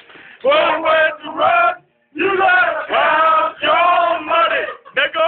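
A group of men singing together in loud, drawn-out phrases, with a brief break about two seconds in.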